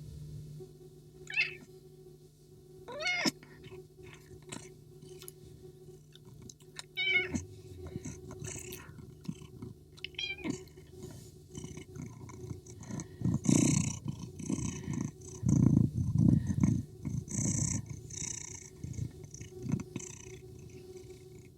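Domestic cat meowing about four times in the first half over a steady low purr, then a run of louder, rough low sounds through the second half.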